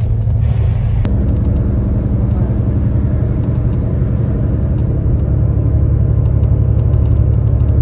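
Steady low rumble of a moving vehicle, with a faint steady hum joining about a second in and fading out around the middle.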